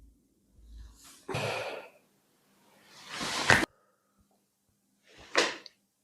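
A person breathing hard, three loud, noisy breaths. The middle one swells and then cuts off sharply.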